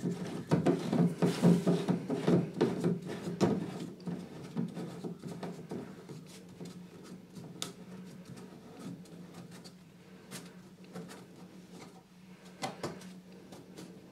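White plastic bath waste fitting being screwed up by hand onto the threaded waste outlet: plastic rubbing, scraping and clicking, busiest in the first three or four seconds, then fewer, softer handling sounds.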